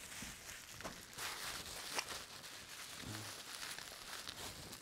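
Faint crinkling and rustling of a thin clear plastic bag being handled and opened around a toy figure, with scattered light clicks and a sharper click about two seconds in.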